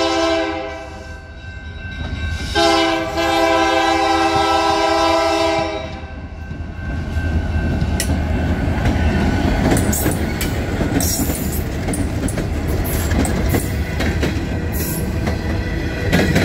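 Freight locomotive BNSF 2911 sounding its multi-note air horn in two blasts, a short one ending about a second in and a longer one of about three seconds. Then the locomotives pass close by: diesel engine rumble and wheels clicking over the rail joints and the crossing.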